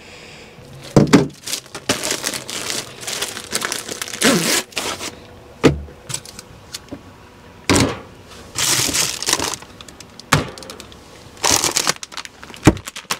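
Plastic food packaging crinkling and rustling in repeated handfuls, with several sharp knocks of things being set down or handled.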